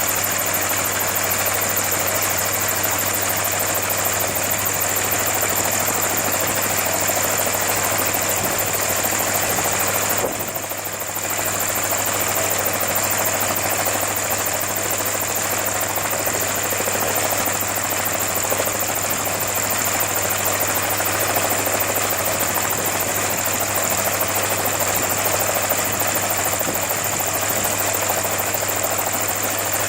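An engine running steadily, with a constant high whine over a low hum; the sound dips briefly about ten seconds in.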